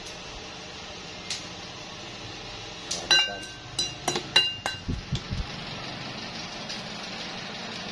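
Stainless steel pestle striking and pounding in a stainless steel mortar of chili, garlic and salt: about three seconds in, a quick run of ringing metallic clinks, then a few duller knocks.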